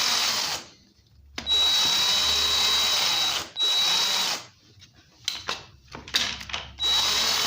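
Cordless drill driving in the screws of a chainsaw's cover, its motor whining in several runs of one to two seconds, with a few light clicks between runs.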